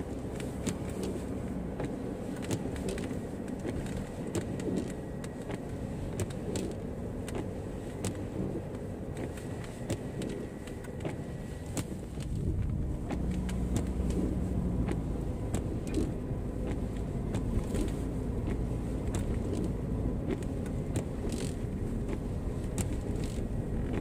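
Road and engine noise heard from inside a car driving slowly on a snow-covered road, with scattered small clicks and ticks. About halfway through, the rumble steps up abruptly, louder and deeper.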